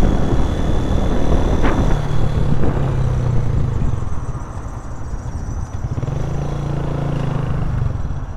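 Motorcycle engine running while under way, heard from the rider's seat. The engine note falls away about four seconds in, then holds steady again for a couple of seconds.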